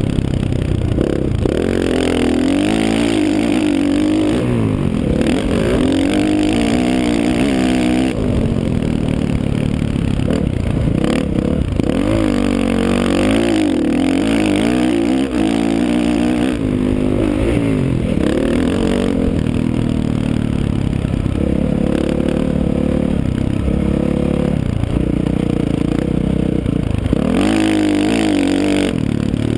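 Motocross dirt bike engine revving up and down over and over as the rider works the throttle around the track, with brief drops where the throttle is chopped or a gear is changed.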